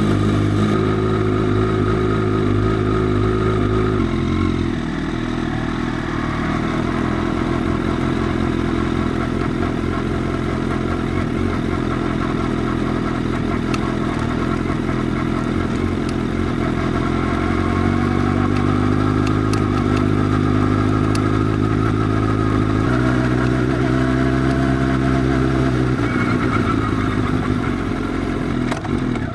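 Motorcycle running through an aftermarket Arrow full exhaust system with the dB killer removed. It holds steady engine speeds, with the pitch shifting in steps a few times.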